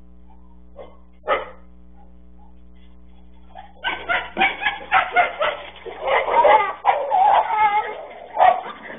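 Dog fight: a large Fila Brasileiro attacks a smaller stray dog. A single bark comes about a second in, then from about four seconds loud, overlapping barking and yelping that does not let up.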